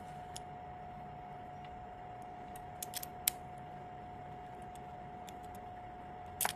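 2M2 Tank CNC key cutting machine with a faint steady hum, a few light clicks about halfway through and a sharper click near the end.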